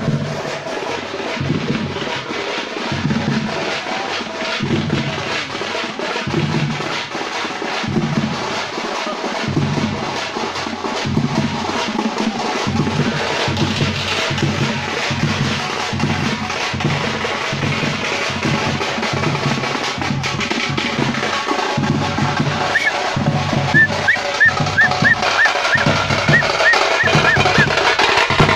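Thappattai (parai) frame drums beaten in a fast, dense rhythm over recurring heavy low beats, growing louder towards the end. Near the end a quick run of short high chirps sounds over the drumming.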